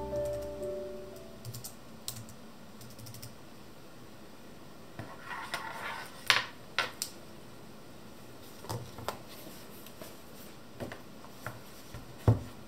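Scattered clicks of keys on a slim low-profile keyboard, with louder taps and knocks as a tablet in a folding folio case is handled on the desk, the sharpest about halfway through and near the end. Piano music rings out during the first second.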